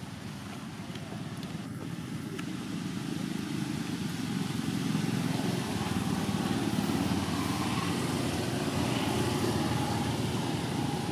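Low rumble of a motor vehicle's engine, growing louder over the first five seconds and then holding steady.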